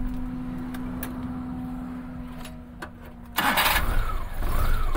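A steady low hum stops about three seconds in. The Maruti Omni's three-cylinder petrol engine then cranks briefly, catches at the first attempt, and runs with a pitch that rises and falls. The quick start comes just after its valve clearances were adjusted to cure misfiring and late starting.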